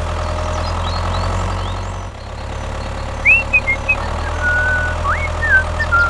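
Tractor engine idling: a steady low drone that dips briefly about two seconds in, then carries on. A few short, high chirps come over it in the second half.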